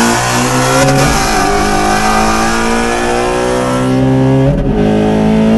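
A car engine at full throttle accelerating hard, its pitch climbing steadily through each gear, with two upshifts, about a second in and near the end.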